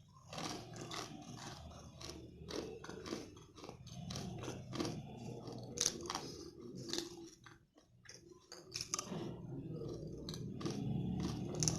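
Close-miked chewing and crunching of peanut brittle candy (kadalai mittai): irregular crisp crunches, with a short lull about eight seconds in.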